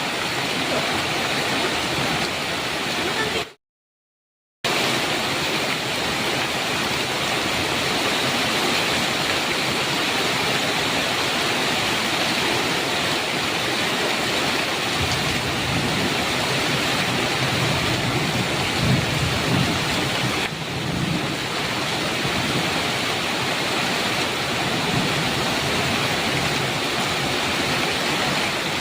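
Heavy rain falling steadily, with a low rumble of thunder a little past the middle. The sound cuts out completely for about a second near the start, then resumes.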